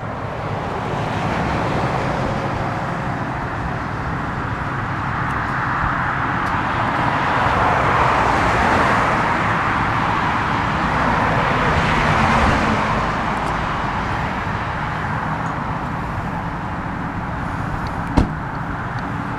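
Road traffic: cars passing on a nearby road, the tyre and engine noise swelling and fading as each goes by. There is a single sharp click near the end.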